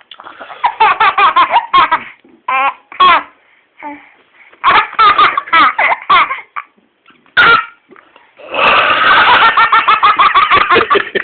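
A baby laughing hard in several fits of rapid, high-pitched pulses with short pauses between them, the longest fit running near the end.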